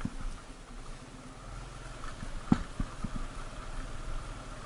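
Motorcycle engine running steadily at low revs, with the bike knocking and rattling over a rough gravel road; one sharp, loud knock about two and a half seconds in.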